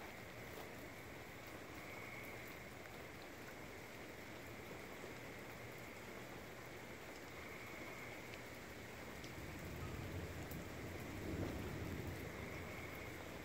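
Steady rain falling, with a faint distant tornado warning siren whose single tone swells and fades every five or six seconds. A low rumble of thunder builds and peaks near the end.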